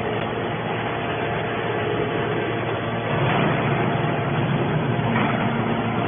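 Hydraulic scrap metal baler running: a steady mechanical drone from its motor and hydraulic pump, with a faint steady hum.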